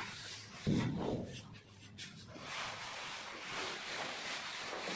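A plastering tool rubbing and scraping over fresh cement-sand plaster on a wall, a steady scratchy sound, with a brief louder sound about a second in.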